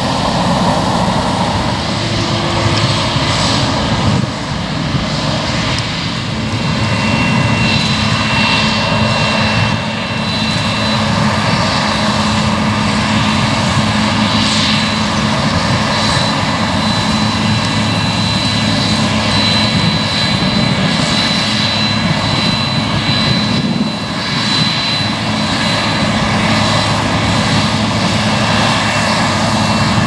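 Claas Lexion 630 combine harvester running steadily while harvesting wheat: a continuous engine drone and machinery hum, with a thin high whine over it.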